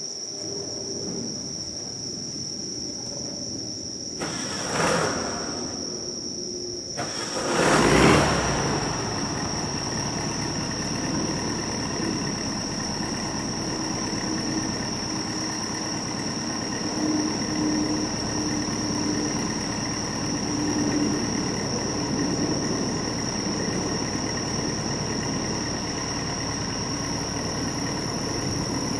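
1954 oval-window Volkswagen Beetle's air-cooled flat-four engine: a short burst about four seconds in, then about seven seconds in it is cranked, catches and settles into a steady idle. Crickets chirp steadily in the background throughout.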